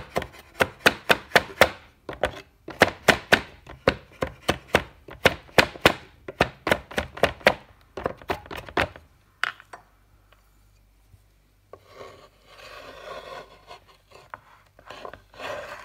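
Cleaver mincing garlic on a wooden cutting board: fast, even strikes at about five a second, stopping about nine seconds in. Then the blade scrapes across the board, gathering the minced garlic.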